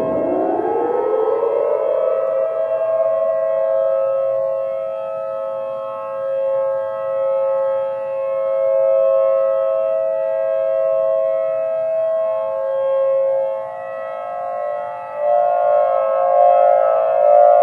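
Civil defense siren alarm: two tones rise together over the first two seconds, then hold as a steady chord of several tones with a slowly wavering level. About fifteen seconds in, the tones shift and the sound grows louder.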